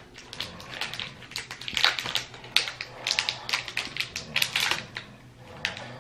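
Aluminium foil wrapper on a roll of chocolates being crinkled and peeled open by hand: a rapid, irregular crackling.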